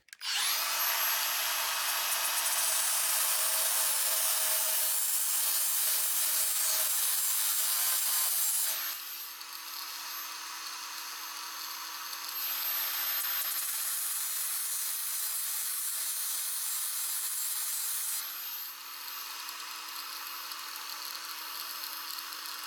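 Small electric power tool running steadily and grinding down built-up weld inside a worn steel door hinge, to bring the hinge-pin bore back to size. It grinds harder in two spells, then eases off at about nine seconds and again near the end.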